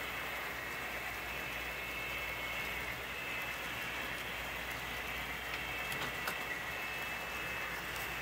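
Model train locomotives running on a layout's track: a steady whir of small motors and wheels on rail, with a faint high whine and a few light clicks about six seconds in.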